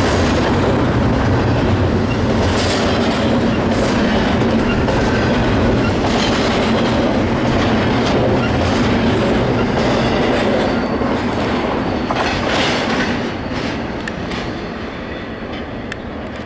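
BNSF double-stack intermodal freight train of container well cars rolling past: a steady rumble of steel wheels on rail with repeated clickety-clack from the wheels crossing rail joints. The sound eases off over the last few seconds.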